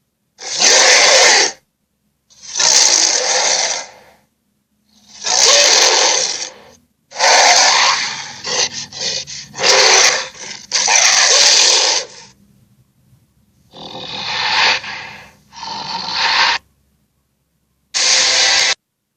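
A string of short, raspy sea-monster sound effects, each about a second long with silence between them, one after another.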